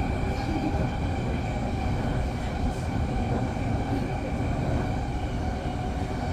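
Semboku Rapid Railway 9300-series electric train running along the line, heard from inside the leading car: a steady rumble of wheels on rail with a faint constant high whine.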